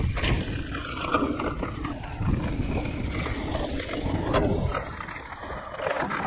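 Mountain bike riding down a rough trail: wind buffeting the microphone, with tyre rumble and knocks and rattles from the bike over the uneven ground.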